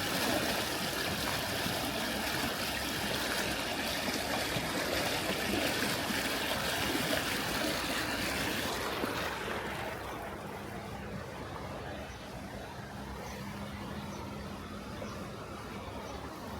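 Rushing water, a steady hiss, that grows quieter about nine or ten seconds in, leaving a fainter wash.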